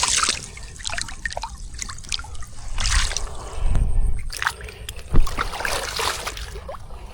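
Water splashing and trickling in irregular bursts as hands work in shallow water, with small drips and clicks and one sharper splash about five seconds in.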